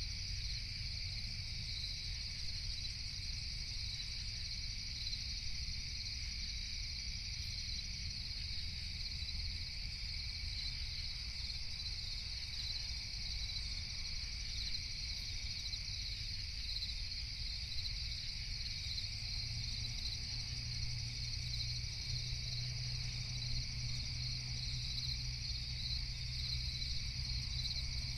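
Night insect chorus: a steady, unbroken high-pitched chirring at two pitches, over a steady low rumble.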